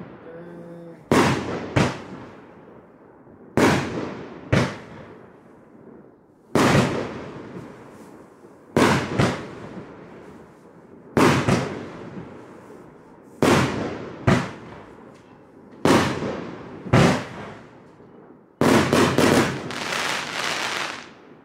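A 25-shot, 30 mm fireworks cake firing its shells. There is a sharp bang roughly every two seconds, several of them in quick pairs, and each one trails off. Near the end comes a rapid flurry of bangs, the cake's finale.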